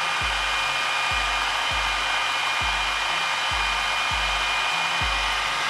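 Food processor motor running steadily with a whine, blending cheese and a little water into a cream. It cuts off at the end.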